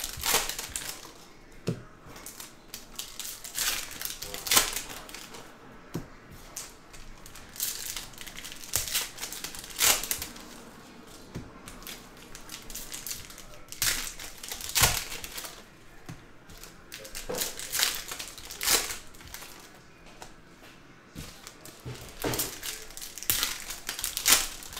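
Foil trading-card pack wrappers crinkling and tearing open, with cards being handled and shuffled, in irregular bursts of crackle.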